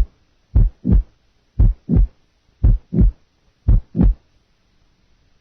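Recorded heart sounds at 60 beats a minute, with a late systolic murmur added just before the second heart sound: four lub-dub pairs, about one a second, stopping about four seconds in.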